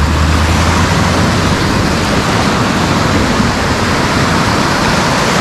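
Shallow ocean surf washing and breaking around the legs of someone wading, a loud steady hiss of moving water. A low rumble fades out in the first second or two.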